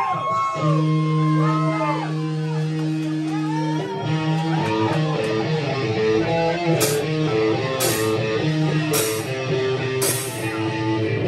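Electric guitar played live at rock-band volume: held notes with string bends, then a repeating picked riff. Four sharp crashes come about a second apart in the second half.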